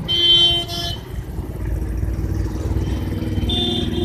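Road traffic runs over a flyover with a steady low rumble. A vehicle horn honks loudly right at the start, twice in quick succession over about a second. Another horn sounds near the end.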